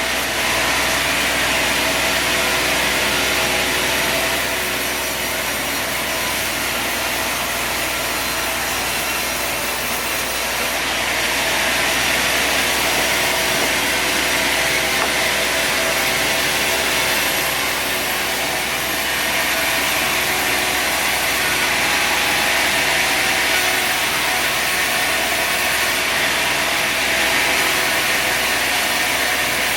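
A sawmill running and sawing through a log: a steady engine and blade noise that grows louder and eases off again over stretches of several seconds.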